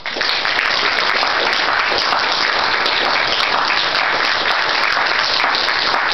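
Audience applause, breaking out all at once and continuing loud and steady.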